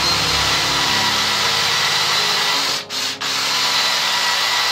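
Cordless drill boring into softwood, running steadily under load, with two brief stops about three seconds in.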